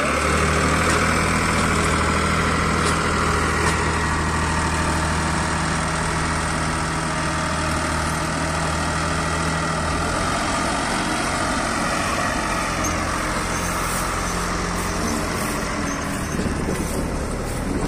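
Dasmesh 912 tractor-mounted combine harvester driven by a John Deere tractor, running steadily while harvesting: a constant engine drone with the noise of the cutting and threshing machinery over it.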